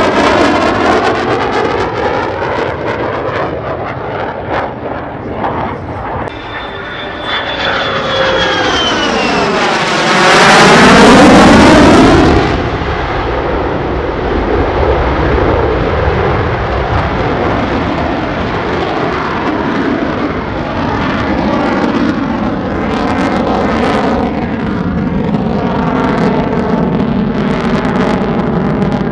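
F-35A Lightning II's F135 afterburning turbofan on a flypast. A whine falls in pitch as the jet approaches, the sound is loudest for about two seconds around ten seconds in as it passes close, then it settles to a steady rumble as it climbs away in afterburner.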